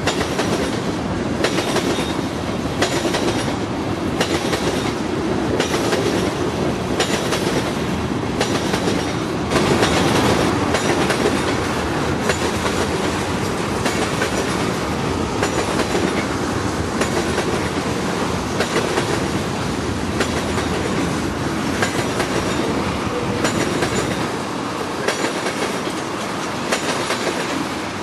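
Freight train cars rolling slowly past, their wheels clacking over rail joints in a steady rhythm of about one click a second under a continuous rumble, with faint flange squeal.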